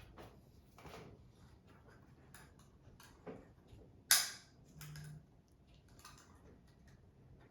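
Scattered light clicks and taps of small objects being handled, with one sharp knock about four seconds in.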